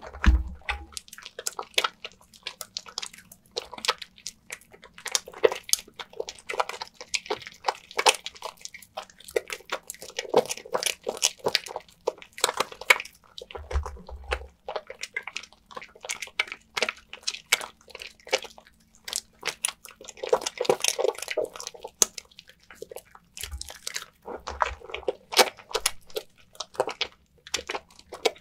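Wet bar of Nefis lavender soap being lathered: dense, irregular crackling and squishing of soapy lather and water, with a few soft low bumps.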